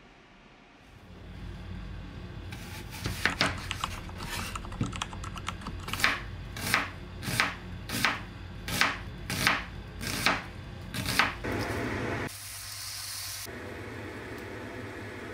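Kitchen knife chopping an onion on a wooden cutting board: a run of sharp, even chops, roughly three every two seconds, followed near the end by a brief hiss.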